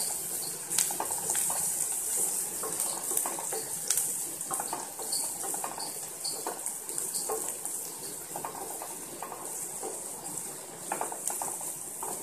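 Chopped onions sizzling in hot oil in a frying pan as a wooden spatula stirs them, with irregular scrapes and taps of the spatula against the pan.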